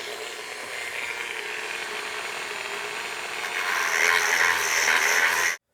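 Small power tool running steadily, growing louder about four seconds in, then stopping abruptly.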